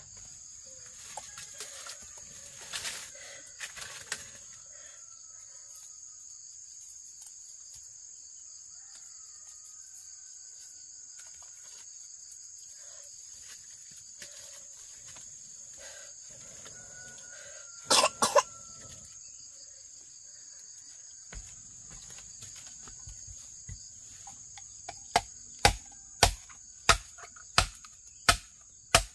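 Steady high insect drone with faint hen clucks. About two-thirds through there is a brief loud noise. Near the end a run of sharp knocks begins, about two a second, typical of chopping.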